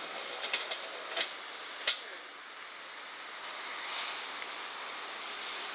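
Steady outdoor background noise, like distant traffic, with a few sharp clicks in the first two seconds.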